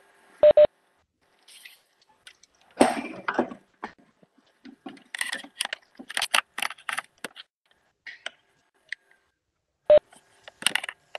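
Scattered clicks and taps through an open video-call microphone, thickest from about five to seven seconds in, with a brief rustle about three seconds in and a short sharp beep-like sound just after the start and again near the end.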